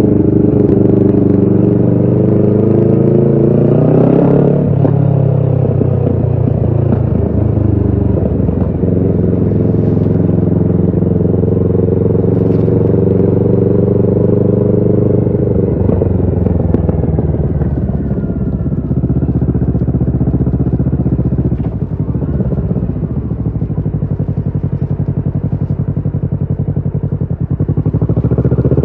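Kawasaki Ninja 650 parallel-twin running through a Shark SRC-4 full exhaust while riding. The engine climbs in pitch, drops back about four seconds in, and holds steady for a stretch. From about 16 s it winds down slowly, runs rougher and lower for a while, then climbs again at the very end.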